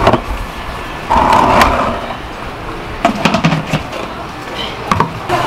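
Hollow plastic knocks and clacks of a large plastic batter bucket and its lid being handled and set down. There is a knock at the start, a short rush about a second in, and a cluster of clacks about three seconds in.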